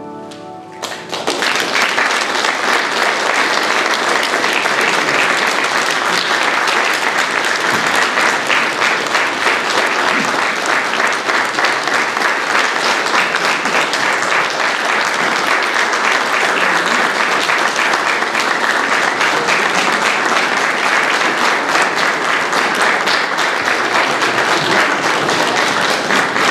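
The last note of the choir and piano fades away, and about a second in a hall audience breaks into steady, sustained applause.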